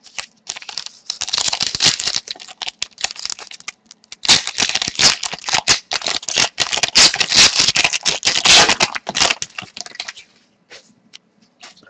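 Foil trading-card pack wrapper crinkling and tearing as it is ripped open by hand: a dense run of crackles from about a second in until near the end, then a few scattered clicks.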